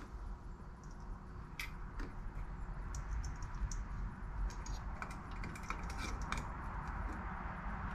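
Light metallic clicks and clinks of steering-wheel hub adapter parts being handled and fitted onto the steering column. The clicks are short and scattered over a low, steady background hum.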